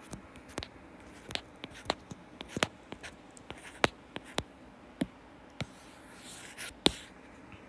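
Stylus tapping and scratching on a tablet's glass screen as equations are handwritten: a string of irregular sharp clicks, with a longer scratchy stroke near the end that ends in the loudest tap.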